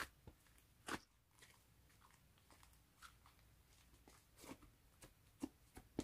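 Hands squishing and pulling a white slime, giving faint sticky pops and crackles: one at the start and another about a second in, then a quiet spell, then a few more in the last two seconds.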